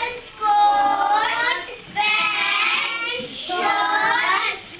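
A group of young children singing together in unison, in phrases of about a second and a half with short breaks between them.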